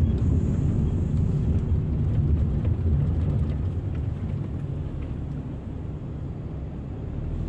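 Car driving along a city street, heard from inside the cabin: a steady low rumble of engine and road noise that eases off a little in the second half.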